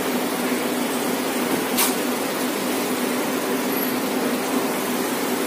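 Steady rushing background noise with a faint low hum, and a single sharp click about two seconds in.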